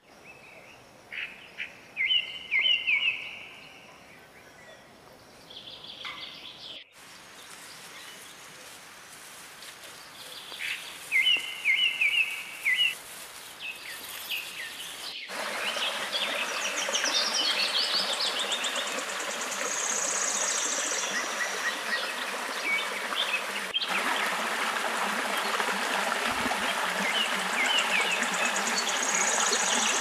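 Birds chirping in short bursts over a quiet background; about halfway through, the steady sound of a shallow rocky stream's running water takes over, with bird calls above it.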